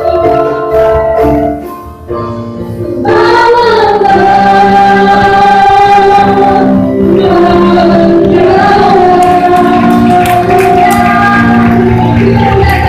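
A congregational worship song sung into microphones by worship leaders, a woman's voice prominent, with keyboard accompaniment over the church PA. The music thins briefly about two seconds in, then the voices come back in full on a long held note.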